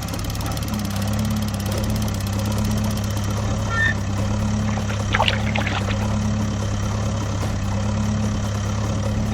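Steady engine-like hum of a mini DIY tractor or bulldozer at work, with a few short high chirps about four and five seconds in.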